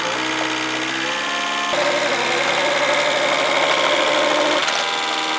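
Digger's diesel engine running steadily, then working harder and louder for about three seconds from near two seconds in, before settling back.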